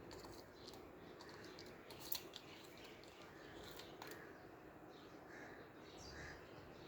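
Faint chirping of young Indian ringneck parrots, with scattered small clicks and taps, one sharper tap about two seconds in.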